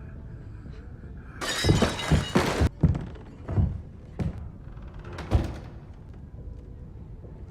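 Glass shattering with a clatter of breaking, followed by several heavy thuds spaced about a second apart.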